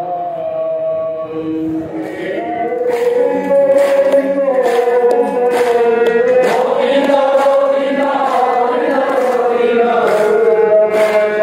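A group of devotees chanting a prayer together in long, slowly gliding sung lines. It gets a little louder about three seconds in.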